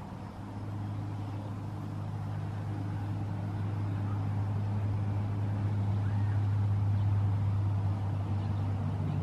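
A steady low engine hum that swells slowly, loudest about seven seconds in.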